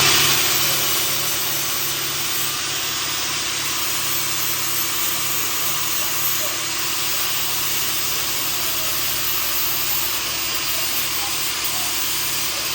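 Welding on a steel ATV frame as a gusset is tacked on: a steady, loud hiss over a low hum that starts suddenly and runs on without a break.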